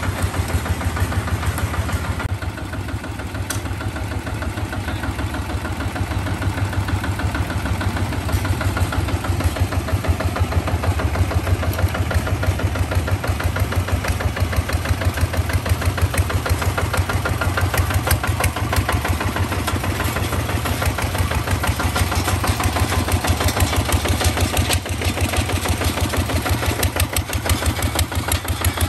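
Kubota single-cylinder diesel engine of a two-wheel walking tractor running steadily with a rapid, even chug.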